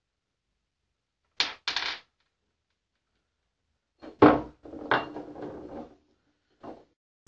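Two sharp knocks in quick succession, then a clatter with a short ringing note a couple of seconds later, and one more small knock near the end: a hard object being handled and knocked.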